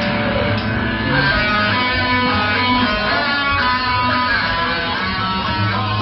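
Live rock band playing: strummed electric guitar over bass guitar, steady and loud.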